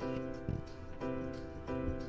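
Background music with held notes that change at a steady pace, about every two thirds of a second.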